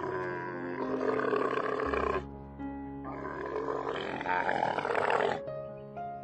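Two long, rough animal roars, each about two seconds, over steady background music.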